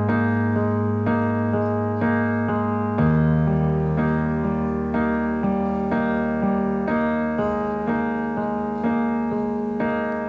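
Instrumental piano passage: repeated struck chords over held bass notes, with the bass changing about three seconds in.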